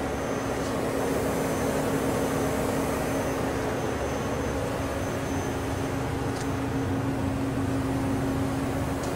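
Hurco BMC-20 CNC vertical machining center running its program without cutting: a steady hum of the spindle and axis drives with a constant low tone, a faint high whine that comes and goes, and a few faint ticks.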